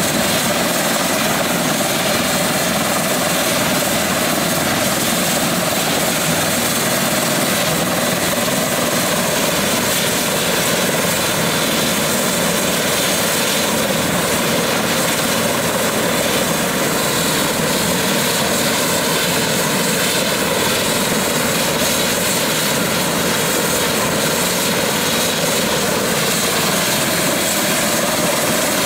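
Airbus EC145 T2 helicopter running on the ground with its rotors turning: the twin turboshaft engines whine over the rotor noise at a steady level.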